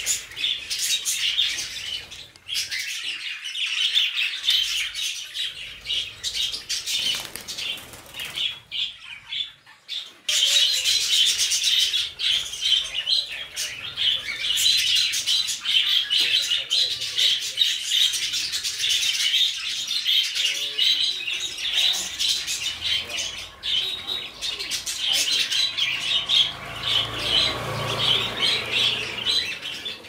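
A flock of budgerigars chattering and warbling continuously, many birds at once, with a brief lull about eight to ten seconds in before the chatter returns at full strength.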